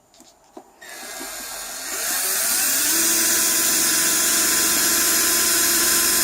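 Electric drill boring a hole into a wooden box: it starts about a second in, builds up, and then runs loud and steady.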